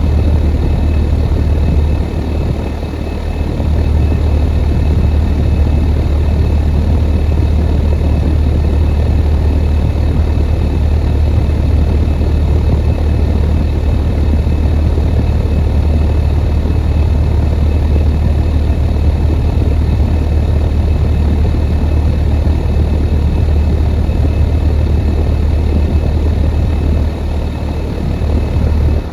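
2015 Rheem central air conditioner's outdoor condensing unit running steadily: a deep, even compressor hum under the rushing of the condenser fan.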